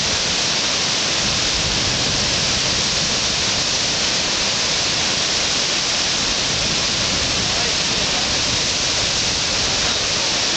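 Whitewater rapids: a steady, loud rush of churning river water breaking over a standing wave.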